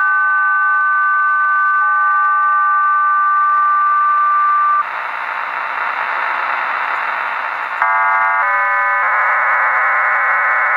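HM01 Cuban numbers station heard on a shortwave receiver: a steady two-note tone that stops about five seconds in, giving way to hiss. About eight seconds in a digital data burst begins, a stepped chord of many tones becoming a dense warbling band of many tones.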